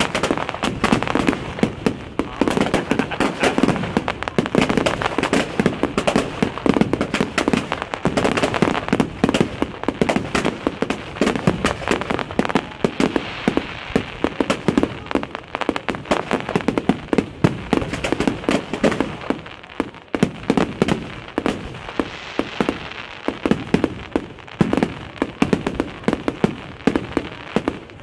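Fireworks display: a rapid, continuous barrage of bangs, pops and crackles from aerial shells bursting overhead, briefly thinning about two-thirds of the way through.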